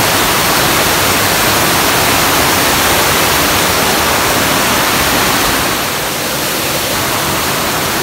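Steady rush of water, an even hiss that dips a little about six seconds in.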